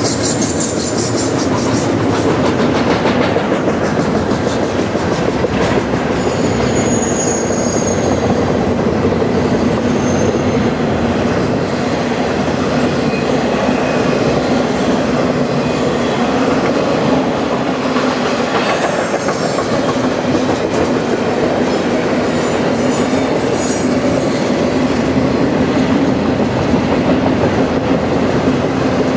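Intermodal freight train's double-stack well cars rolling past steadily, wheels clicking over the rail joints, with brief high-pitched wheel squeals now and then as the cars round the curve.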